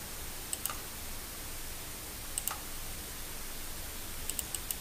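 Computer mouse clicks, two pairs of them, then a quick run of keyboard key taps near the end, over a steady microphone hiss.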